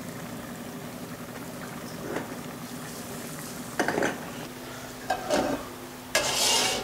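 Diced apple sizzling and bubbling in melted butter and sugar in a frying pan, the sugar starting to caramelise. A few knocks and scrapes of pots and utensils, the loudest near the end.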